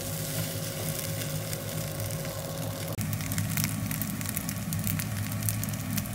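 Egg fried rice sizzling and crackling in a frying pan over a low steady hum. There is an abrupt cut about three seconds in, after which the frying comes as scattered sharp crackles.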